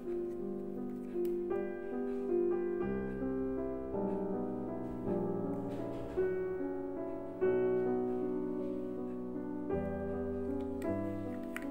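Background piano music: a steady run of sustained notes changing every second or so.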